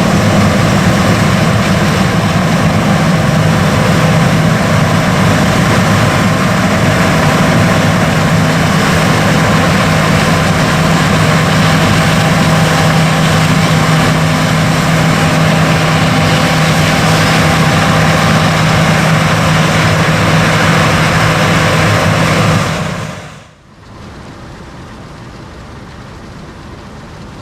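Large diesel harvest machinery running steadily close by, a loud even engine drone. About 23 seconds in it drops away quickly to a much quieter, steady hum.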